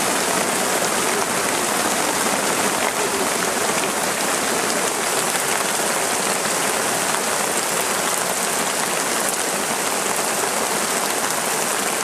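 Tropical downpour: heavy rain falling steadily on forest foliage, a dense even hiss with a fine patter of drops.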